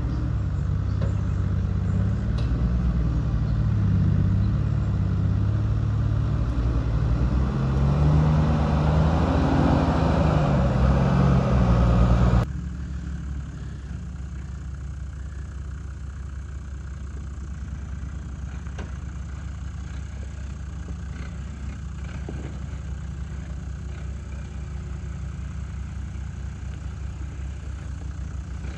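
Toyota LandCruiser 80 series engine under load working through deep ruts, its note rising and falling with the throttle. About twelve seconds in the sound cuts abruptly to a quieter, steadier low engine note as the truck crawls over rough ground.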